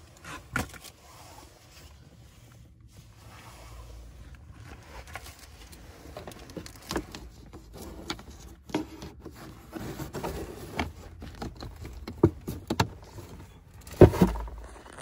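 A cabin air filter being pushed into its housing in the dash: scraping and rustling with scattered light knocks, the loudest knock near the end as it goes in.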